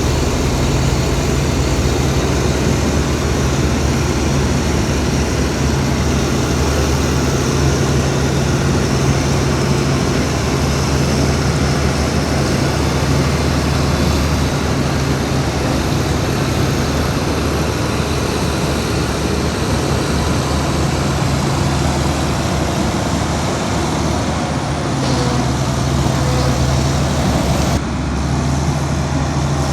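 Heavy diesel engine of earthmoving machinery running steadily, with a brief dip in level near the end.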